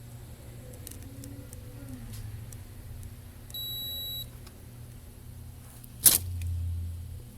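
A multimeter's continuity beeper sounds once, a steady high beep lasting under a second, as the probes find low resistance between the test points while a board component is checked for a short. A sharp click follows near the end, over a low hum.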